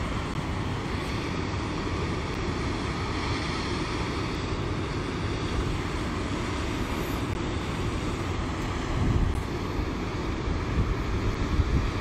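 Steady rush of a whitewater cascade pouring over rock ledges in heavy flow, with wind buffeting the microphone about nine seconds in and again near the end.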